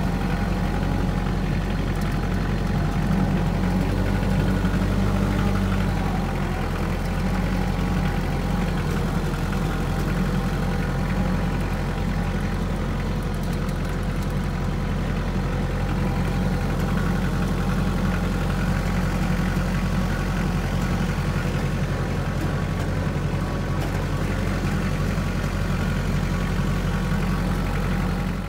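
Tractor engine running steadily, a low continuous hum heard from the seat of the front-loader tractor, its note shifting slightly about six seconds in.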